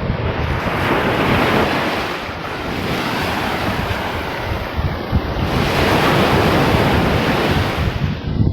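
Surf washing onto a beach, with wind rumbling on the microphone. The wash swells twice, about a second in and again around six seconds in.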